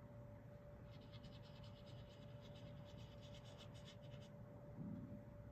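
Faint, quick scratching of a wet watercolor brush being worked in a watercolor paint cake and on paper, for about three seconds, over a faint steady hum.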